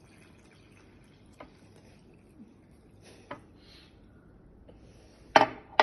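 Water poured from a cup into a bowl of pancake batter, a faint trickle, with a few light clicks of a wire whisk against the ceramic bowl. Near the end come two sharp, much louder knocks half a second apart.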